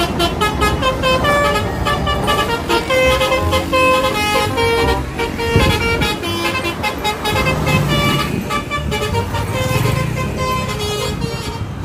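Telolet bus horn, a multi-tone air horn, playing a quick tune of short notes over a running vehicle engine.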